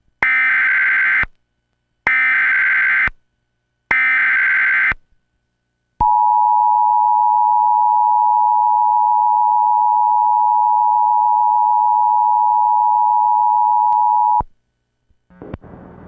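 Emergency Alert System alert opening: three roughly one-second bursts of the SAME header's warbling data tones, then the steady two-tone attention signal held for about eight seconds before cutting off suddenly. It signals the start of an emergency alert, here a mock flash flood warning.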